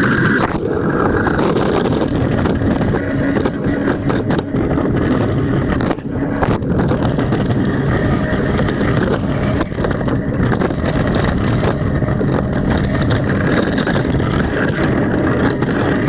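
John Deere backhoe's diesel engine running steadily under load while it pushes snow with a front-mounted angle snow blade.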